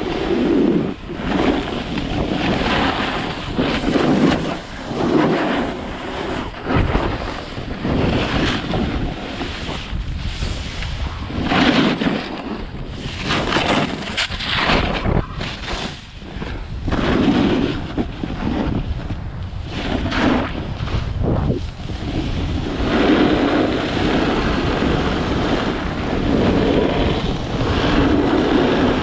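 Snowboard riding over groomed snow: the board's base and edges scrape and hiss on the snow, swelling and easing every second or two as it turns, with wind buffeting the microphone.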